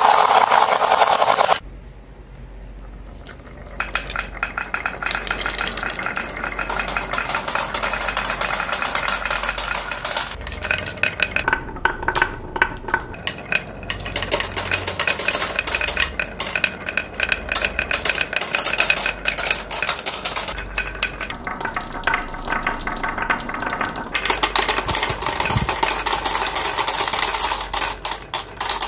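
Glass marbles rolling along a carved wooden wave track, clicking against each other and clattering as they drop into a toy truck's basket. A dense run of clicks over a steady rolling sound, loudest in the first second or so and briefly quieter soon after.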